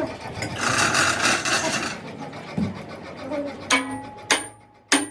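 A short hiss of noise, then three sharp metal strikes with a high ringing after each, about 0.6 s apart, like hammer blows on steel.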